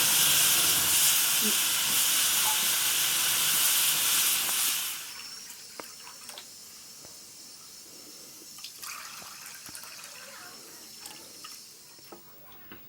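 A loud steady rushing hiss that dies away about five seconds in, leaving a quiet background with faint scattered clicks and knocks.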